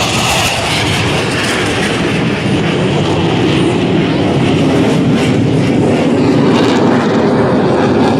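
F/A-18 Super Hornet jets flying a pass, a loud, steady jet roar that grows slightly louder.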